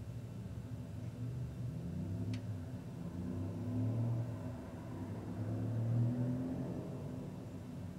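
A motor vehicle's engine running as it drives by, its low rumble swelling twice as it accelerates, with a single sharp tick about two seconds in.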